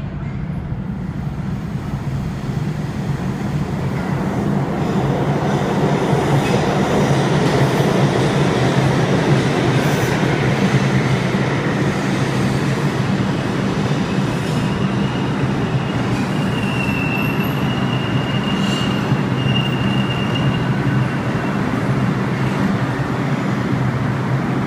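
R142 subway train pulling into the station: the rumble of its wheels on the rails builds as it comes in, then a thin, high wheel squeal sounds in the second half as it brakes to a stop.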